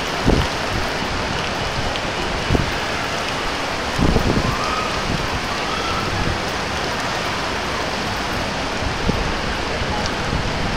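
Heavy rain falling in a steady downpour, with a few brief low thumps about a quarter of a second in, again at about two and a half seconds, and around four seconds.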